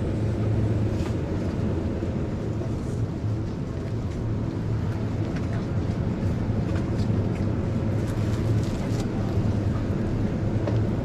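Supermarket background noise: a steady low rumble with scattered faint clicks and rattles.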